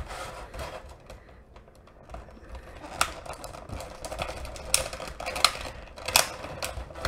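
Clear plastic blister packaging crackling and clicking as it is cut and pried open with a Swiss Army knife, irregular snaps that grow louder and more frequent in the second half.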